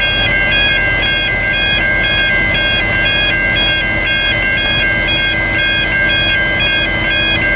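Electronic railway level-crossing warning bell ringing steadily in a repeating chime, about two cycles a second. Under it is the low steady running of the waiting N class diesel locomotive.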